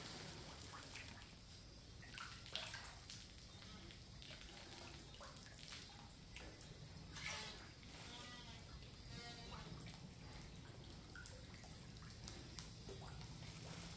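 Catfish splashing and slurping at the water's surface as they take floating feed pellets: faint scattered splashes and drips, with two louder splashes about two and a half and seven seconds in.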